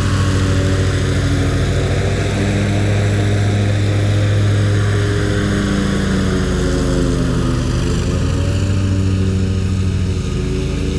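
Ferris ISX 2200 zero-turn mower running steadily while cutting grass, its engine pitch dipping slightly about seven seconds in and then recovering.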